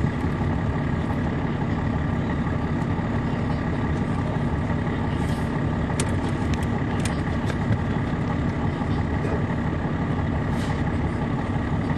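Caterpillar C13 ACERT diesel engine of an MCI D4500CL coach running steadily, heard from on board the bus, with a few short clicks about halfway through.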